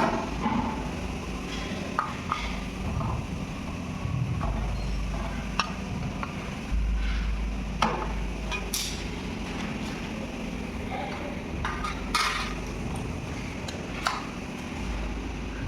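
Sparse metal clinks and knocks of ceiling fan parts and tools being handled during assembly, over a low steady rumble.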